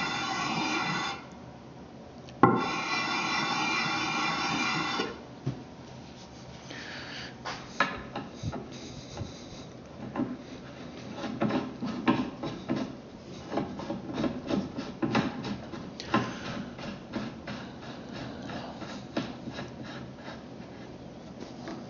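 Steel muzzle brake rubbed against abrasive paper on a flat plate to lap its face: a steady, ringing rasp in two spells, stopping about a second in and starting again with a knock, then ending about five seconds in. After that come light metal clicks and taps as the brake is handled and screwed onto the threaded barrel.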